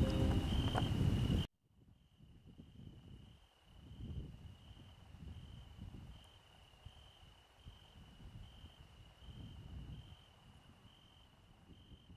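Background music cuts off abruptly about a second and a half in, leaving insects chirping, a steady high pulsing trill, over a low rumble that swells and fades.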